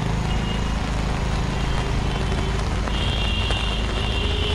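Rain falling on a busy street, with the steady low rumble of traffic under it. A high steady tone joins about three seconds in.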